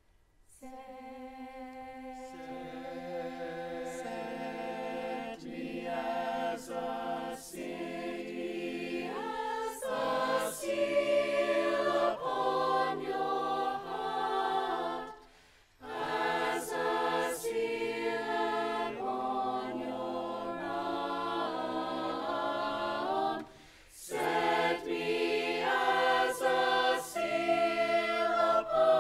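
Mixed choir of men's and women's voices singing in parts, entering just after the start out of silence. The singing breaks off twice for a moment between phrases.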